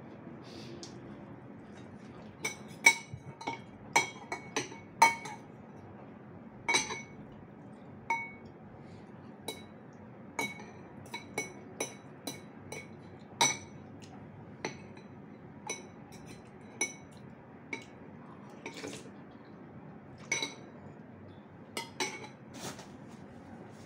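Eating utensil clinking against a bowl of noodles: a couple of dozen sharp, ringing clinks at irregular intervals, thickest and loudest a few seconds in.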